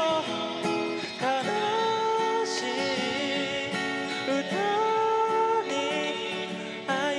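A man singing into a microphone to acoustic guitar accompaniment, holding long notes with a slight waver in pitch.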